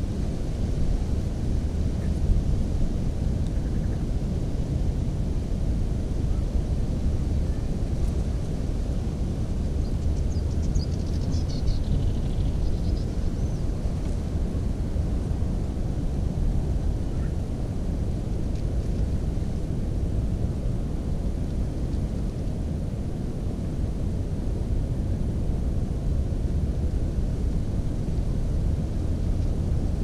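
Steady low rumble of wind buffeting the microphone of a camera set in cattails, with a few faint, high, falling chirps about a third of the way through.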